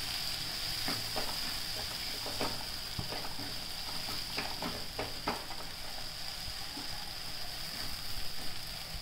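Almond paste frying in ghee in a nonstick kadhai, a steady high sizzle, while a silicone spatula stirs it with short scrapes and taps, most of them in the first half or so.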